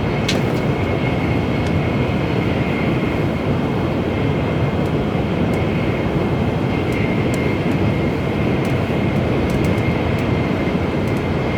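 Steady running noise inside an N700A Shinkansen car travelling at speed: an even rumble and hiss with a faint steady high whine and a few light clicks.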